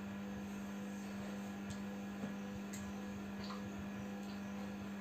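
A steady, low electrical hum with faint hiss, and one faint tick a little over two seconds in.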